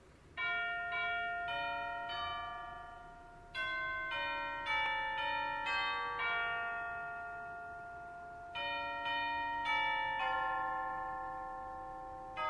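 Bell chimes playing a slow melody: single struck notes, each ringing on and fading, in short phrases separated by pauses while the bells die away.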